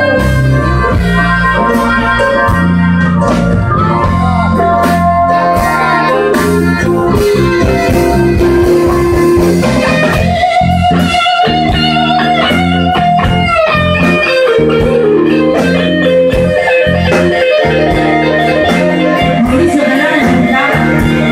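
Live electric blues band playing: electric guitar with bent, held notes over bass guitar and drums, with a harmonica near the start.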